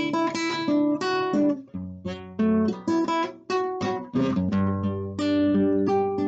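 Acoustic guitar strummed and picked, a run of chords with each strike ringing on, in a steady rhythm without singing.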